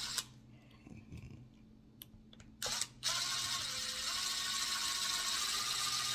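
Craftsman V20 cordless driver spinning a hex bit to back out a small screw on an RC truck's rear hub. It runs briefly, stops, gives a couple of short blips about two and a half seconds in, then runs steadily from about three seconds in with a whine that rises and then holds.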